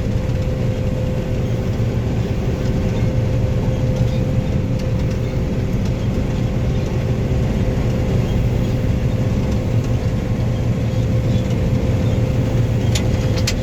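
Combine harvester running steadily while harvesting oats: a low, even drone with a steady whine over it, and a couple of light clicks near the end.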